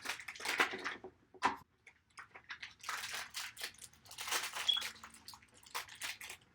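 Plastic wrapping being crinkled and torn open by hand, in irregular crackling bursts.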